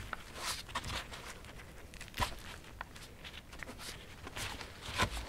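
Gloved hands pulling the innards out of a skinned red squirrel's body cavity: soft tearing of membranes and crinkling of the gloves, with a few sharper clicks, about two and five seconds in.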